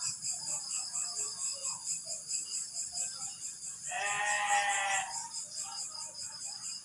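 Crickets chirping in a steady, fast pulsing rhythm. About four seconds in, a louder animal call with a slightly wavering pitch lasts about a second.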